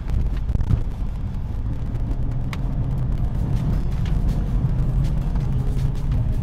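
In-cabin drive noise of a 2018 BMW 520i (G30) under way: a steady low rumble from its 2.0-litre turbocharged four-cylinder engine and the tyres on the road.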